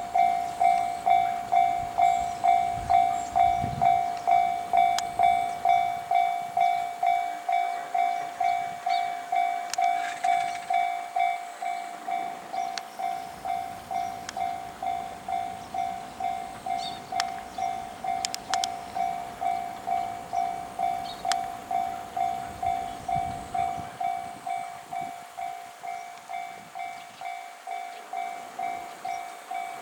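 Japanese railway level-crossing warning bell ringing, an electronic 'kan-kan' ding repeating at about two strikes a second and growing gradually softer. A brief low rumble comes twice beneath it.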